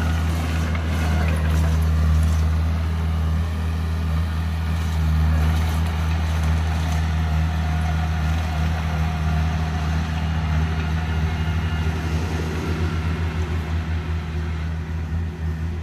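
Diesel engine of a small Komatsu crawler bulldozer running steadily under load as it grades loose dirt, a continuous low drone. A few seconds before the end the drone turns into a regular pulsing.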